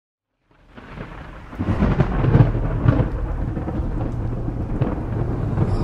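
Thunder rumble sound effect: a deep rolling rumble with crackle on top. It fades in about half a second in, swells louder at about a second and a half, then holds steady.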